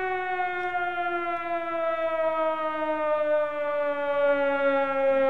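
Siren sound effect played to celebrate a big card pull: one long tone that slowly falls in pitch.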